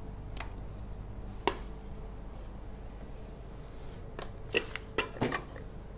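A spatula knocking and scraping against a stainless steel mixing bowl and metal baking tin as cake mixture is scooped out: a single knock about a second and a half in, then a quick cluster of clinks near the end.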